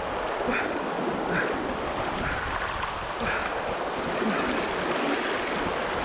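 River rapids rushing and splashing over rocks, heard right at the water's surface: a steady, even rush of whitewater.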